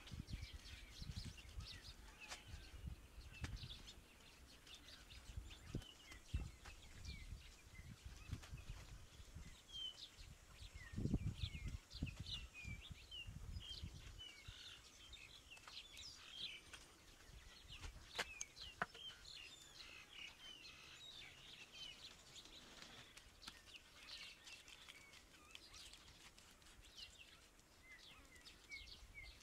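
Small birds chirping in many short, quick calls throughout. Under them come dull thumps and slaps of wet mud plaster being pressed onto a bamboo-lattice wall, heaviest about eleven seconds in.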